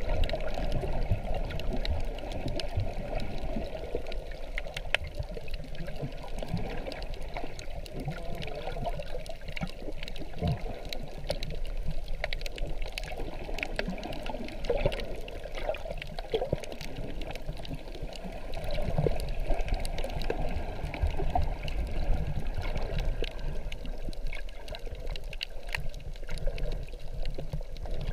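Water sloshing and bubbling, heard underwater through a GoPro's waterproof housing while snorkeling, with many small scattered clicks.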